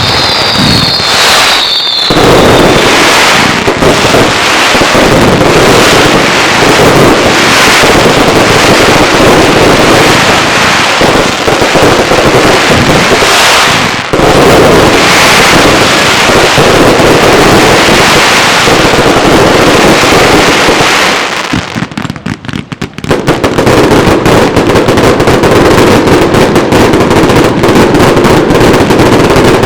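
Fireworks going off in a loud, dense, continuous string of bangs and crackle. A falling whistle fades out about a second in, and the firing thins briefly about 22 seconds in before starting up again.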